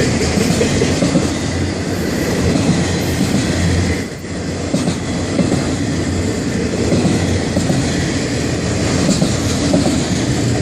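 Florida East Coast Railway freight train's cars rolling past close by, steel wheels on rail making a loud, steady rumble and clatter, with a brief lull about four seconds in.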